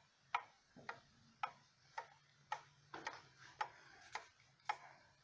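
Ethan Allen skeleton wall clock's exposed brass movement ticking steadily, about two ticks a second; the movement is freshly hand-cleaned and oiled and running well.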